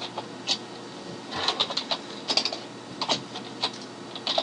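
Computer keyboard being typed on: short irregular runs of key clicks with brief pauses between them.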